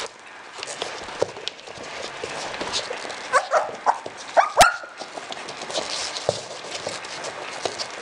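A litter of puppies eating together from a plate of meat: many small clicks and smacks throughout, with a few short, high puppy yelps in the middle and one sharp knock just after them.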